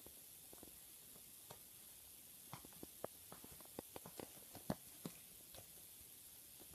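A cat grooming itself: small irregular clicks of licking and nibbling at its fur, bunched in the middle of the stretch, over faint background hiss.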